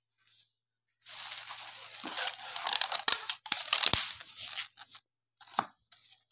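Thin plastic carrier bag rustling and crinkling for about four seconds as foam takeaway boxes are pulled out of it, then a few short sharp clicks near the end as the foam clamshell boxes are handled and opened.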